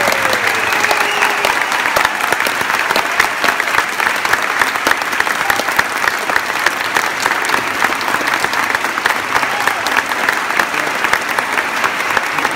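Audience applauding, many hands clapping steadily at the end of a band performance.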